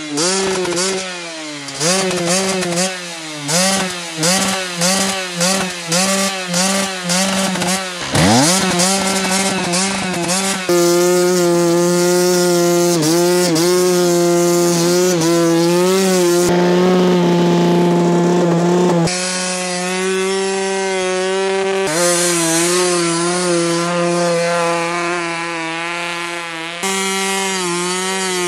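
Two-stroke Koshine 150 pit bike engine being revved hard: a quick run of throttle blips, the pitch rising and falling about once a second. From about ten seconds in it is held at high revs, with sudden jumps in pitch and level.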